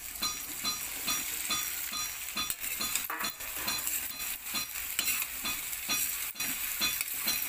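Cut potatoes and okra sizzling in hot oil in a steel kadhai, stirred and scraped with a metal spatula in quick repeated strokes.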